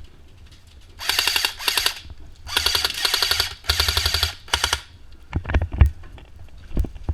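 Airsoft gun firing full-auto in several quick bursts, a rapid even rattle of shots, followed by a few single sharp snaps.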